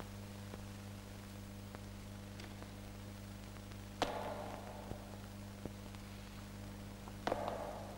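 Two sharp knocks echoing through a large hall, about three seconds apart, the second a quick double strike. Under them runs the steady hum and faint crackle of an old film soundtrack.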